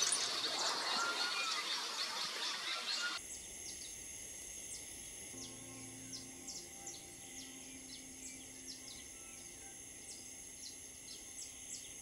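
Birds chirping and singing, louder for about the first three seconds. Then an abrupt cut to quieter open-air ambience, with many short, high chirps coming irregularly throughout.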